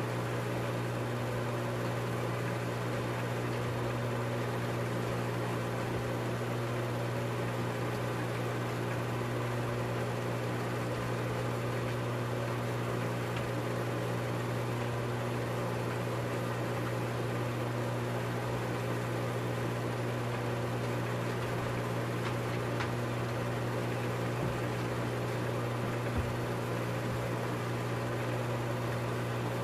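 Steady low electrical or motor hum over an even hiss, unchanging throughout, with a few faint clicks in the second half.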